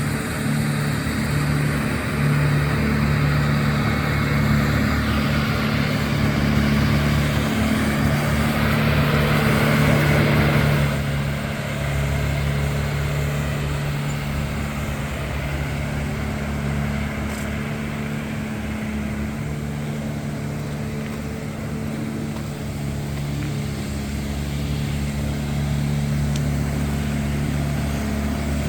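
A motor vehicle's engine running steadily, with a louder rushing noise over it that drops away about ten seconds in.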